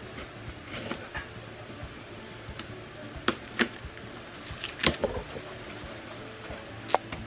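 Cardboard shipping box being cut open and its flaps pulled back: rustling and scraping with a few sharp cracks, the loudest about three and five seconds in and another near the end.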